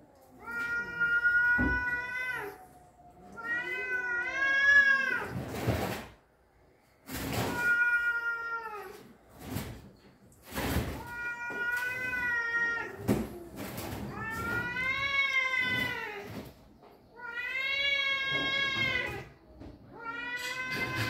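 Two domestic cats in a fight standoff, yowling at each other. About seven long, wavering caterwauls follow one another, the threat calls of a territorial face-off, with a few short hisses between some of them.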